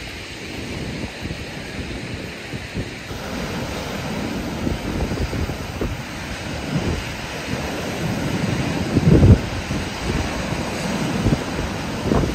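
Wind buffeting the microphone in gusts over the wash of sea waves breaking on a beach, with the strongest gust about nine seconds in.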